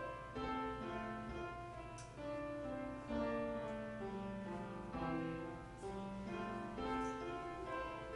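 Slow instrumental music: held notes in chords that change every second or so.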